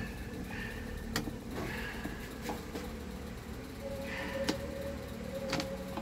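A handful of sharp plastic clicks and knocks as a Mondial fan's front grille and its clips are handled and fitted, over a steady low hum.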